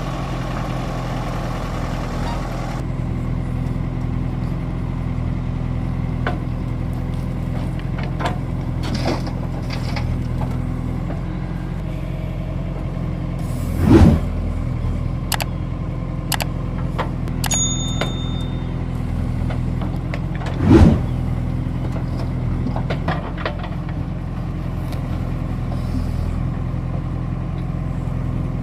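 Heavy diesel construction machinery running steadily, with scattered short knocks and two loud thumps, about halfway through and again some seven seconds later.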